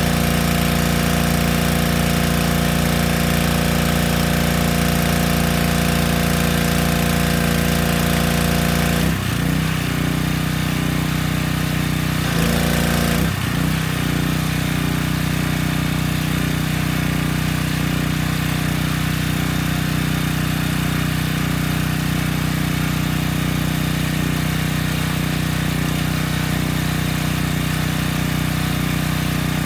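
Yamaha PowerStroke 3100 PSI gas pressure washer's small engine running steadily. Its note shifts about nine seconds in and briefly again around thirteen seconds, as the spray wand is worked.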